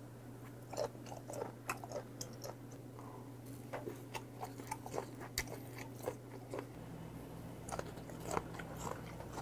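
Close-miked chewing of raw sashimi: irregular wet mouth clicks and smacks, over a steady low hum.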